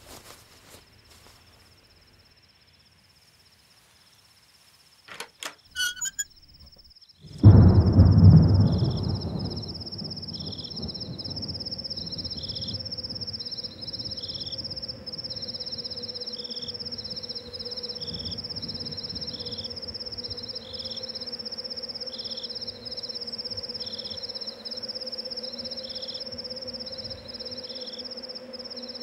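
Crickets chirping in a steady, repeating pattern. About five seconds in come a few sharp clicks, and about seven seconds in a loud low rumble rises suddenly and dies away over a couple of seconds, leaving a steady low hum under the crickets.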